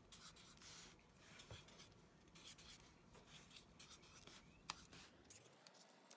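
Faint scratching of a felt-tip marker drawing short strokes on paper.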